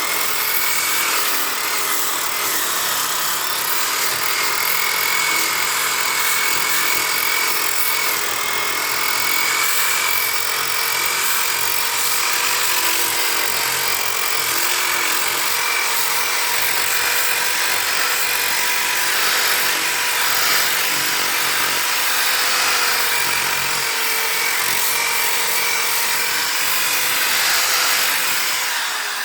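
Electric power sander running steadily on body filler, a constant motor whine over the hiss of abrasive on the surface.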